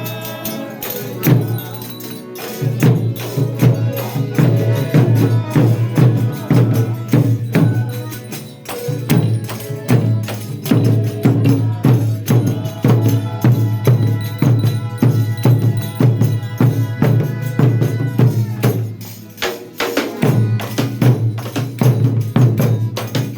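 Folia de Reis music: a tambourine keeps a steady, even beat under sustained held notes from the group's other instruments. The music thins out briefly a few seconds before the end, then picks up again.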